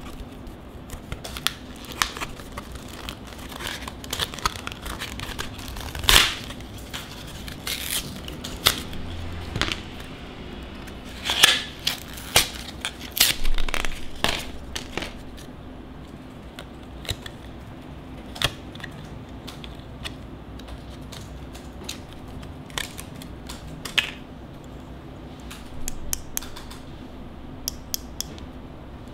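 Cardboard-and-plastic blister packaging being torn open by hand, with irregular crackling and tearing. The loudest bursts come about six seconds in and again around twelve to fourteen seconds. Sparser small clicks follow as the flash drive is freed and handled.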